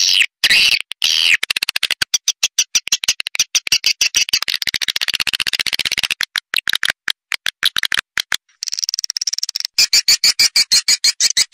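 Swiftlet lure call ('suara panggil pancawarna'), a recording of swiftlet chirps and clicks played to draw swiftlets into a nesting house. It runs as fast, high-pitched trains of clicks and twitters that speed up and slow down in waves, with a few longer chirps at the start.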